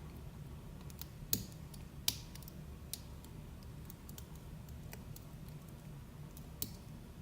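Light metallic clicks and ticks of a lock pick working the pins of an ASSA d12 cylinder under tension from a pry bar. The clicks are scattered and irregular, with two louder ones in the first couple of seconds and another near the end.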